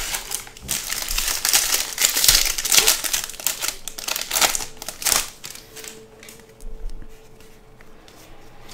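Foil wrapper of a baseball card pack being torn open and crumpled by hand: a dense crinkling that dies down about five seconds in, followed by quieter handling as the cards are pulled from the pack.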